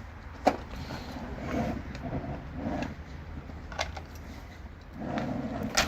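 A few sharp metallic clicks and knocks from a caravan wheel lock being handled, the loudest about half a second in.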